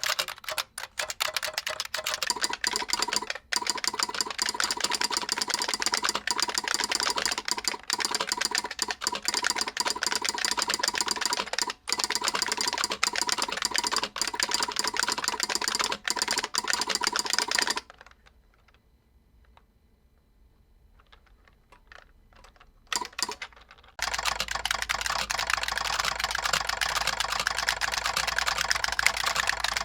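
Rapid typing on a Model F 62 buckling-spring keyboard with a solenoid clicking along with the keystrokes. The typing stops for about six seconds partway through, with only a few single key clicks. It then resumes with a changed sound over a low steady hum.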